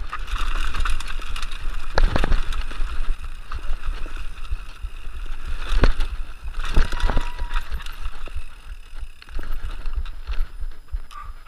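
Mountain bike riding a dirt trail, heard from a bike-mounted camera: tyres rolling over dirt, the bike rattling and knocking over bumps, and wind buffeting the microphone as a constant low rumble.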